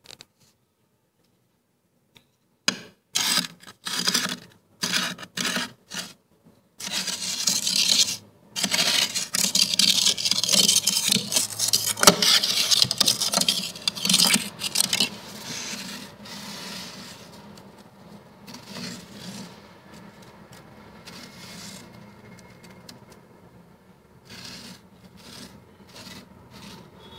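The edge of a plate scraping thick freezer frost: a quick run of short scrapes, then a long loud continuous scrape, growing softer and more scattered toward the end.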